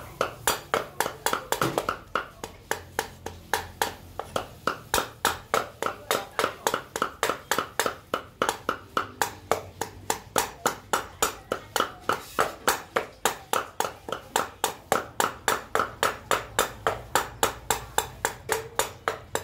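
A cleaver chopping raw pork on a wooden chopping block, mincing it with steady, evenly spaced strikes, about three to four a second.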